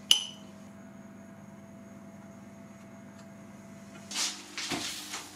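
A knife cutting through a steamed potato clinks once against a ceramic plate, with a short ring, then a faint steady hum. Brief soft rustling near the end.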